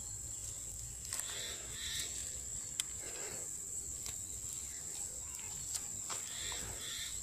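Soft rustling and snapping of leafy weed stems being plucked by hand, with a crinkling plastic bag, over a steady high-pitched insect trill.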